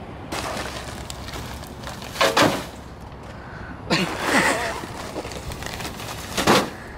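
Heavy plastic sacks of rock, about 50 pounds each, thudding down into a car's rear hatch area, with the crinkle of the plastic bags. Three loud thumps come about two, four and six and a half seconds in.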